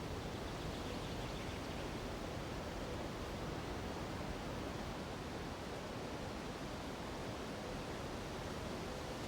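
Steady rushing of a nearby mountain river, mixed with wind through the treetops.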